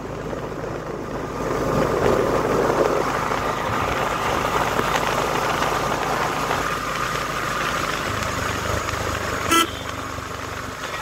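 Road traffic heard from inside a moving vehicle: steady engine and road noise, with one short horn toot about nine and a half seconds in.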